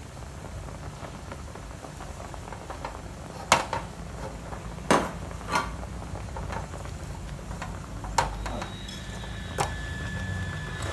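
Water at a rolling boil in a stainless steel pot, a steady low bubbling, with several sharp metal clinks as a skewer and a knife poke the boiling meat and knock against the pot.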